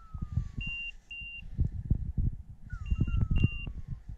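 Beeper collar on a pointing dog sounding its point-mode signal, the sign that the dog has stopped and is standing on point. The signal is two short high beeps followed by a falling tone, and it repeats about every three seconds. Under it are low rumbling and thuds.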